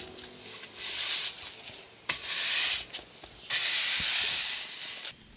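Stiff-bristled push broom sweeping cut grass across concrete paving tiles: three scratchy sweeping strokes, the last one the longest.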